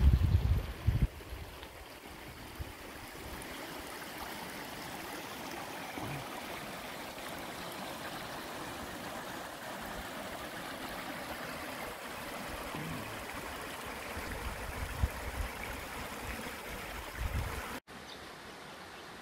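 Serpentine River water running and gurgling over a rock ledge in a steady rush, with low rumbles on the microphone at the start and again near the end. It cuts abruptly near the end to a quieter, more distant steady hiss.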